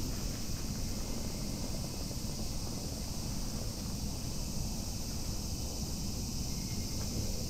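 Steady outdoor background noise: a low rumble of wind on the microphone under a steady high hiss, with no distinct events.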